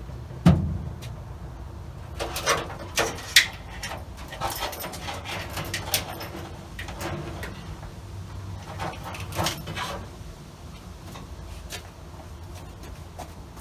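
Intermittent handling noises: scattered knocks and clicks with brief rustling, as parts are moved about while searching for a speedometer cable.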